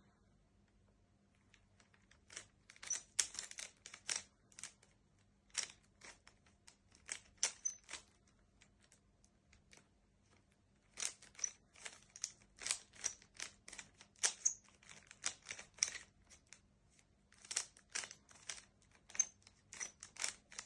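Rubik's cube being solved by hand: runs of quick plastic clicks as the layers are twisted, with short pauses between runs.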